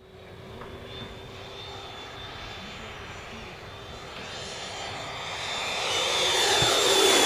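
Freewing JAS-39 Gripen RC jet's 80mm electric ducted fan flying by: a high whine that grows steadily louder as the jet comes closer, its pitch starting to drop near the end as it passes.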